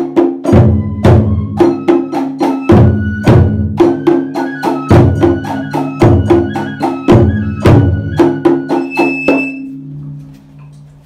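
Large barrel-shaped taiko drum struck with wooden sticks in a fast ohayashi rhythm: loud accented strikes about every half second with lighter strokes between them. The playing stops about nine seconds in and the drum's ringing fades.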